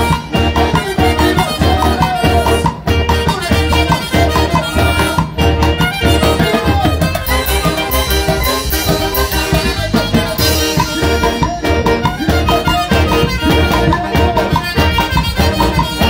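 Live Peruvian orquesta típica playing dance music up close: trumpets and a woodwind carry the tune over a drum kit's snare and cymbals, with a steady, even beat.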